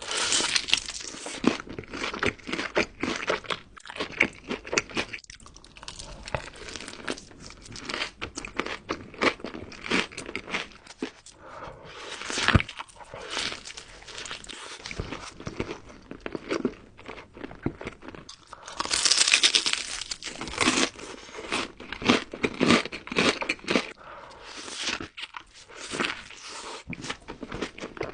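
Chicken nuggets being bitten and chewed, a long run of irregular crisp crunches, with louder bursts about halfway through and again around two-thirds of the way in.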